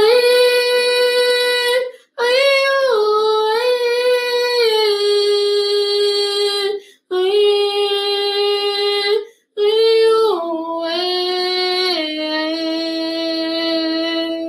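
A woman singing unaccompanied, holding long notes that step down in pitch, in four phrases with short breaths between them.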